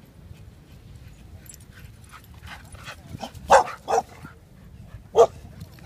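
Dog barking in short, sharp yips: a few faint ones about two seconds in, then three loud ones in the second half.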